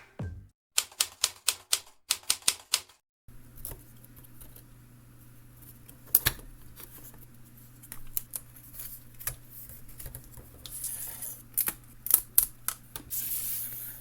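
Keys and typebars of a ROKR LK703B wooden model typewriter clacking as it is typed on: a quick run of about ten strokes in the first few seconds, then scattered strokes and a burst of several more near the end.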